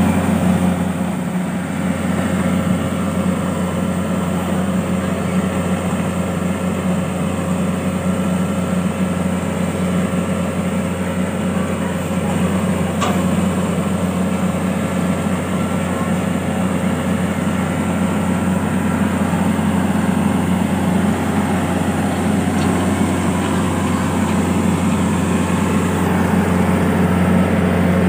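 Kubota AeroStar rice combine harvester's diesel engine running at a steady speed while its unloading auger empties grain into a trailer: a loud, even drone that holds the same pitch throughout.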